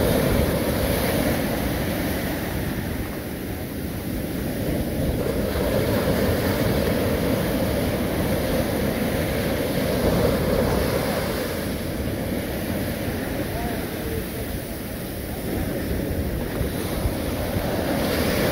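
Ocean surf breaking and washing up the beach, swelling and easing in loudness with the waves, with wind buffeting the microphone.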